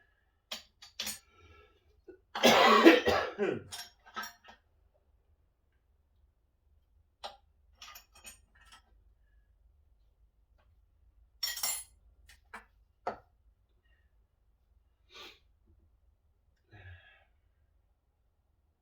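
A man coughs loudly about two seconds in. Scattered short clicks and knocks follow, spaced seconds apart, from hand tools on the old power hacksaw's metal parts.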